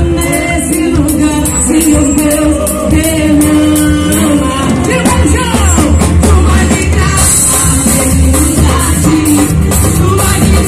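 Live gospel worship band playing a song, with singers over drums, bass, guitars, keyboard and percussion.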